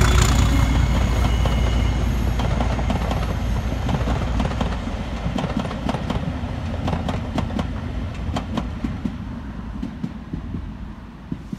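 Passenger coaches hauled by a Class 37 diesel locomotive rolling past and away. The wheels click over the rail joints, and the low rumble of the train fades steadily as it leaves.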